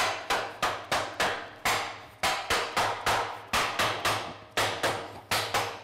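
Dead-blow hammer tapping a steel welding-table plate down to seat it in the table's frame: a steady run of sharp blows, about three to four a second, each with a short metallic ring.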